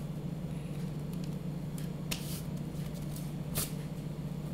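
A steady low hum, with a few brief soft rustles a little after two seconds and again around three and a half seconds in.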